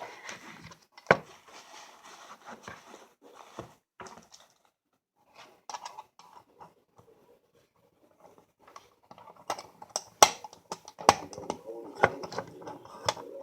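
Light clicks and taps of small toy-train parts being handled and fitted together. It goes quiet for a few seconds in the middle, then a quick run of sharp clicks and knocks fills the last few seconds.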